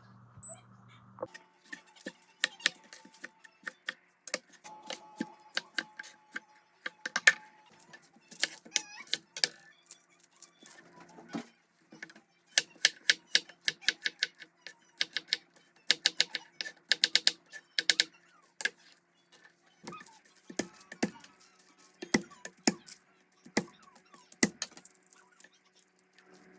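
Kitchen work: many sharp, irregular clicks and taps, some in quick clusters, over a faint steady hum.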